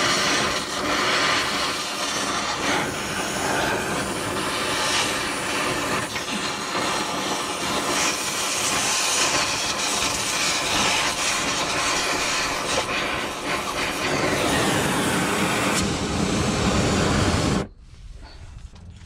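Oxy-fuel cutting torch running on a rusted, seized axle bracket bolt, its flame giving a loud, steady hiss that cuts off abruptly near the end.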